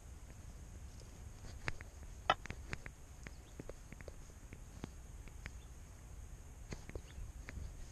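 Low wind rumble on a cat-worn GoPro's microphone, with irregular small clicks and taps scattered throughout, the loudest a pair about two seconds in.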